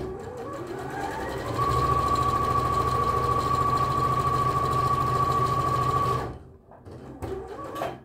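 Bernina B 38 computerised sewing machine stitching down a folded hem. It starts slowly, picks up speed about a second and a half in, runs at a steady pace with a high motor whine over the rapid needle rhythm, and stops about six seconds in.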